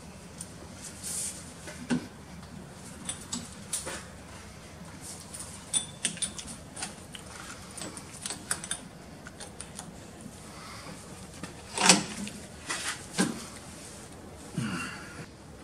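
Scattered light clicks and knocks of steel hydraulic fittings and hose being handled at a bench vise, with two louder knocks about twelve and thirteen seconds in.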